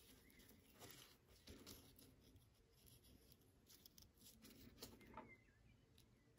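Near silence, with a few faint soft rustles of thread being pulled through a zipper tape and crochet fabric during hand sewing.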